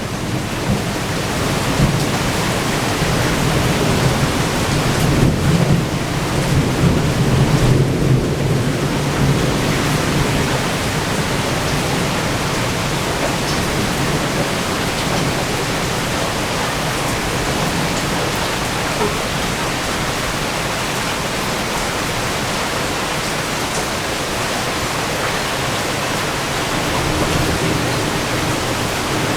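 Steady rain pouring during a thunderstorm, with a long low rumble of thunder through the first third that then fades into the even hiss of the rain.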